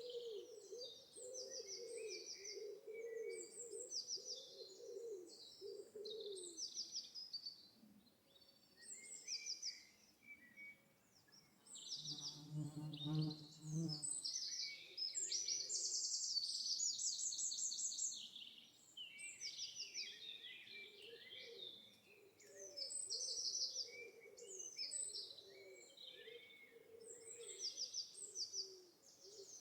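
Birdsong: repeated high chirps and trills, over a low wavering cooing or hooting call that drops out in the middle. About twelve seconds in, a low pitched drone sounds for about two seconds.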